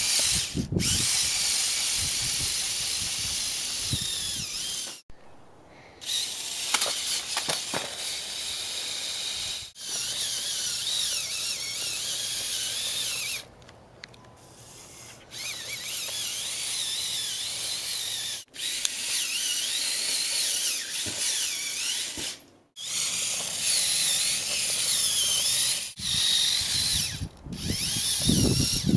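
Lego Power Functions RC motors driving a Lego crawler truck: a high electric whine that wavers up and down in pitch as the throttle changes. It stops and restarts several times, with a quieter stretch about halfway through.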